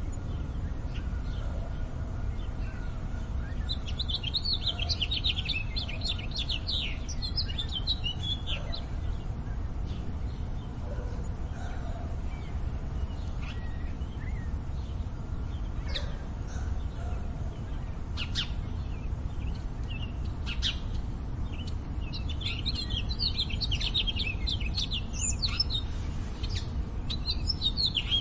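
Small songbirds chirping and twittering in quick clustered bursts, busiest about a quarter of the way in and again near the end, with single chirps in between, over a steady low urban rumble.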